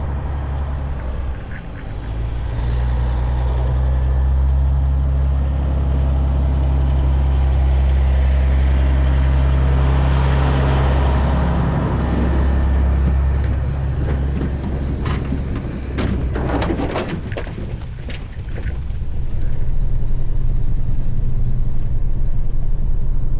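Diesel semi truck hauling a loaded cattle trailer drives past on a gravel road: a steady low engine note that grows louder as it nears, with tyre hiss on gravel as it goes by and a run of sharp clicks and knocks in the second half. Near the end it gives way to the steady engine and road drone inside the truck's cab at highway speed.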